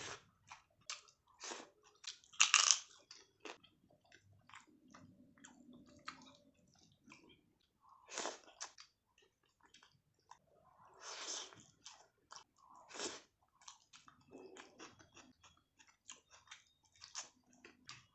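A person chewing and biting crunchy food up close, a run of irregular crackling crunches, the loudest about two and a half seconds in.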